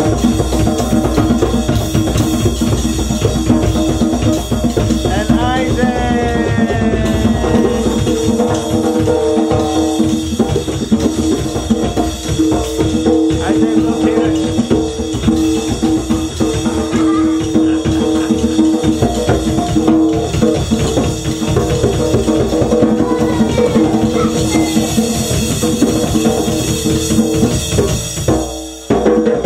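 Children jamming noisily: a drum kit struck with sticks in a fast, busy rhythm, with hands slapping a djembe, over a steady droning tone. The sound dips sharply for a moment near the end.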